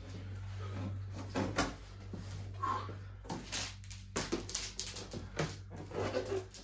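Cardboard packaging being handled and pulled open: scattered rustles, scrapes and light knocks, over a steady low hum.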